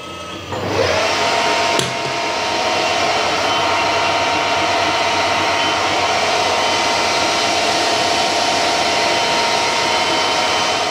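Harrison 140 metal lathe starting up about half a second in, its whine rising to speed, then running steadily with a constant gear whine while the tool turns down a silver steel bar. A single click sounds about two seconds in.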